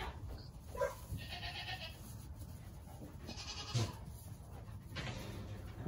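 Newborn Nigerian dwarf goat kids bleating faintly, a few short high calls, with a soft knock a little before the four-second mark.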